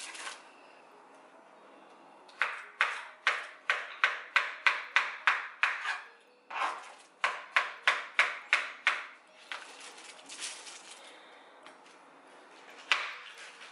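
Kitchen knife chopping pawpaw into chunks: two quick runs of crisp chops, about three to four a second, then a few single chops near the end.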